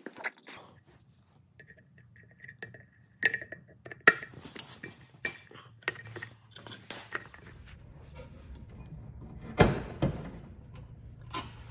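Small metal parts clinking and tapping against a riding mower's steel wheel hub and axle as the rear wheel is fastened on. Irregular light clinks, with two sharper knocks, about four seconds in and near the end.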